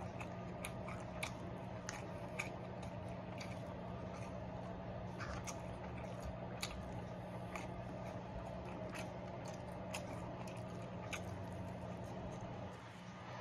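Close-up eating sounds: wet chewing and mouth clicks as takeout sesame chicken and fried rice is eaten, with a plastic fork scraping and tapping in a plastic takeout container, over a steady low hum.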